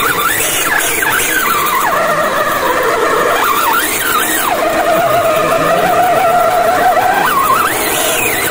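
Electric motor whine of an RC scale crawler, rising and falling in pitch with the throttle and held steady for about three seconds midway.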